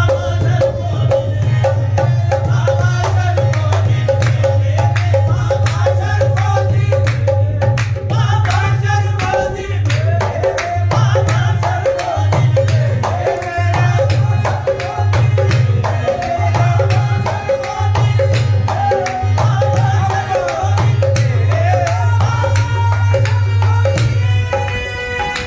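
Live qawwali: voices singing to a harmonium, over a steady hand-drum beat.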